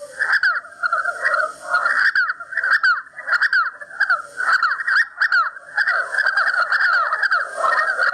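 Grey partridges calling: a dense chorus of rapid, scratchy, creaking calls that overlap one another, with short gaps now and then.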